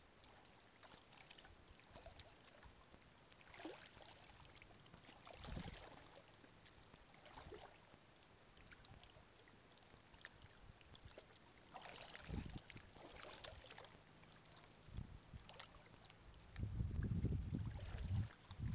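Shallow seawater sloshing and swishing around the legs of someone wading over a reef flat, in a few separate washes, with a louder low rumble in the last two seconds.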